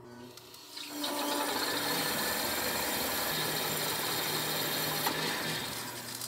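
Leather skiving machine running as a leather strip is fed past its bell knife and shaved thin: a steady, noisy scraping over a motor hum. It starts about a second in and dies away near the end.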